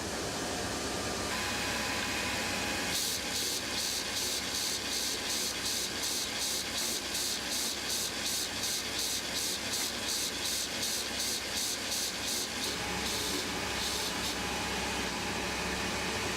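Factory machinery running steadily, with a high hiss that pulses on and off about three times a second for most of the stretch, then stops.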